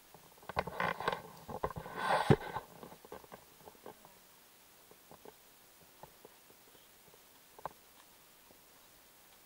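Footsteps crunching and rustling on a forest floor littered with dry twigs and needles. A dense run of crunches and cracks comes in the first few seconds, then only scattered small ticks and snaps, with one sharper crack late on.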